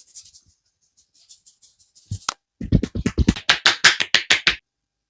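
Head massage slaps: faint quick rubbing strokes, then a fast even run of sharp hand taps on the head, roughly nine a second for about two seconds, stopping abruptly.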